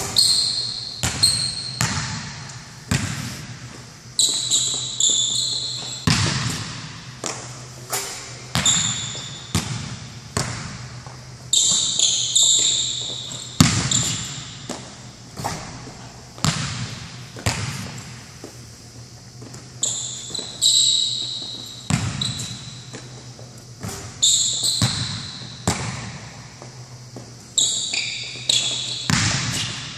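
A basketball bouncing on an indoor court floor in irregular dribbles about once a second, with sneakers squeaking in short high chirps between the bounces. A steady low hum runs underneath.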